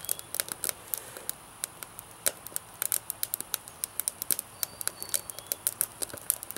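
Twigs burning in a small homemade rocket stove, crackling with frequent irregular sharp pops and snaps.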